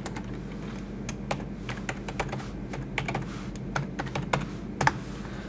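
Computer keyboard typing: irregular keystrokes as an email address is entered, over a steady low hum.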